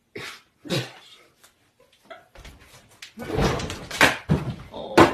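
Two short knocks, then from about halfway a loud scuffle of repeated thumps and scraping, mixed with raised voices.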